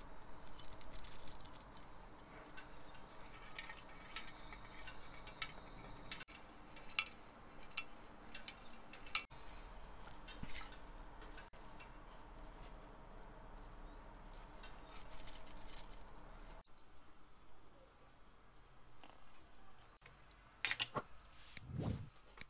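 Small metal parts of an IMCO lighter clinking and clicking as they are handled, in scattered light taps. A brief hissy rubbing sound comes near the start and again about fifteen seconds in.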